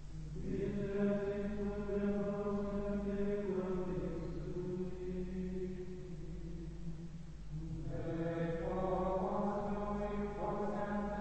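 Carthusian monks singing unaccompanied plainchant in unison, in slow, long-held notes. The line falls away about seven seconds in, and a new phrase starts about a second later.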